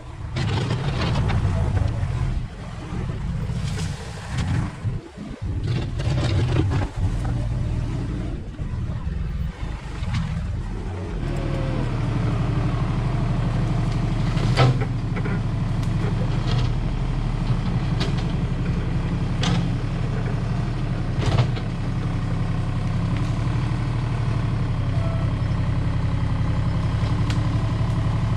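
Engine of a heavy earth-moving machine working while pushing dirt, rising and falling unevenly for the first ten seconds or so, then running steadily, with a few sharp knocks.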